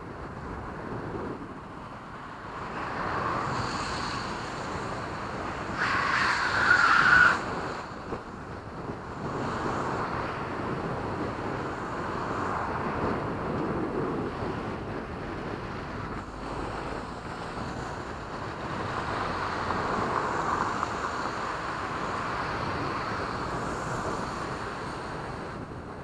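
Car tyres screeching as they slide on a slippery wet road: a shrill squeal lasting just over a second, about six seconds in, and the loudest sound here. Around it, passing traffic and road noise, with wind on the microphone of a moving bicycle.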